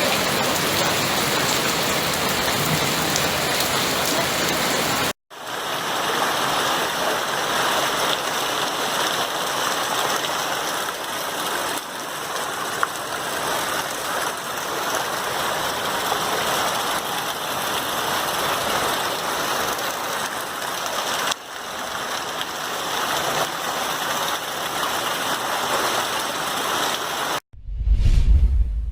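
Heavy rain pouring down, a steady hiss of water, broken by a short dropout about five seconds in. Near the end it gives way to a deep whoosh.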